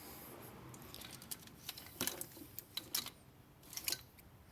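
Light clicks and rattles of car parts being handled, with a few sharp taps about two, three and four seconds in.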